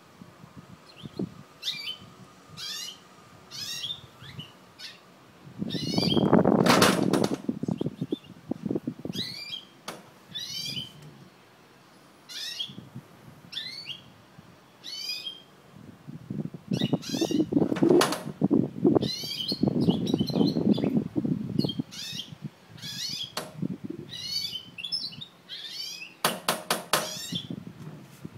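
Caged mule (canary-hybrid finch) singing: phrases of short, high, quickly falling notes, repeated with short pauses. Louder low rustling comes in twice, once about six seconds in and again for several seconds past the middle, and a quick run of clicks sounds near the end.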